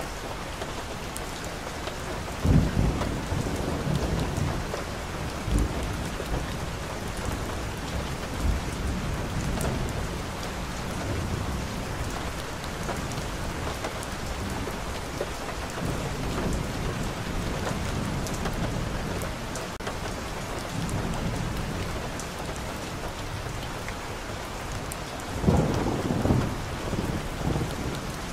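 Steady rain falling on a street and balcony foliage, with several short low rumbles over it; the strongest comes about two and a half seconds in, and a bigger cluster near the end.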